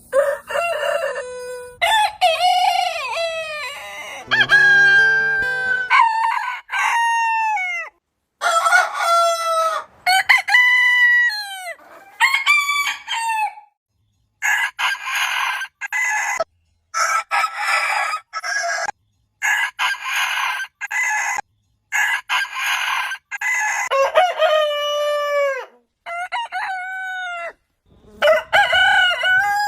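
Roosters crowing one after another, a long run of separate crows, most ending in a falling pitch, joined by abrupt cuts with brief silences between them.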